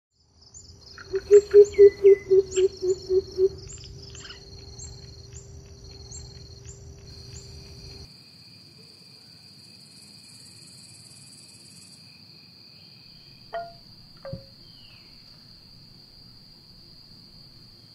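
Insects trilling steadily in a high, even tone. In the first few seconds a loud run of about ten quick low pulses plays over chirping high notes, then cuts off at about eight seconds. Two short sounds come near the end.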